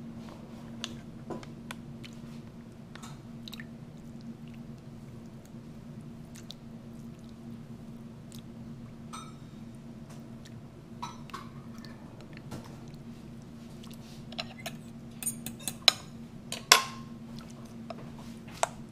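Soft wet squelching and faint clicks of catfish pieces being worked by hand in a bowl of milky wash, with a few sharp clicks near the end, over a steady low hum.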